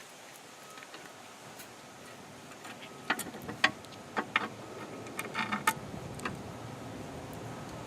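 Small metal parts of a table saw's anti-kickback pawl assembly clicking and clinking as they are handled and fitted. There is a handful of sharp clicks between about three and six seconds in.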